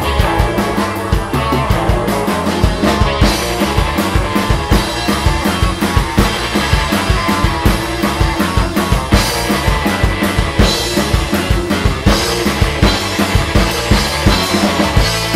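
Psychedelic punk rock song with the full band playing and the drum kit prominent, keeping a fast, steady beat.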